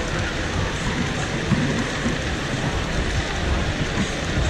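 Steady background din of a busy exhibition hall: an even, hissing wash of noise with no single sound standing out.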